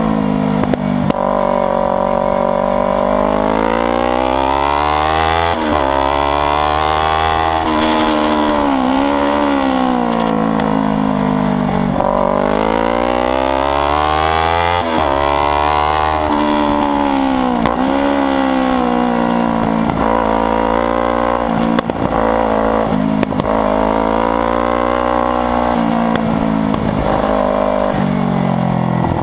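Kawasaki Ninja 300's parallel-twin engine running loud while ridden hard. Its pitch climbs repeatedly under acceleration, drops suddenly at gear changes, and falls away when the rider rolls off the throttle.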